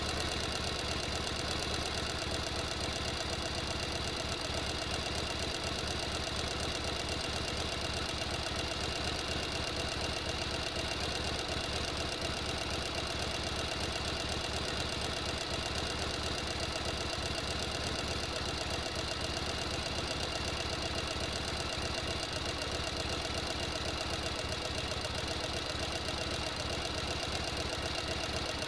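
Sewing machine running steadily at speed, its mechanism clattering in a fast, even rhythm.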